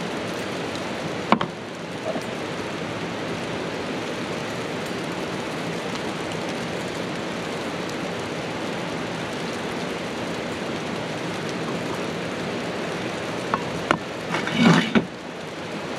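Steady outdoor water noise, like rain and a rushing river, runs throughout. A single sharp click comes about a second in, and a short cluster of clinks and knocks comes near the end.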